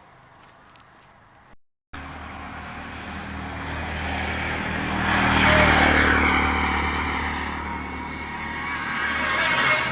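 A motor vehicle passing close by. Its engine and road noise swell to a peak about five to six seconds in, then the pitch falls as it goes past. A second vehicle swells up near the end.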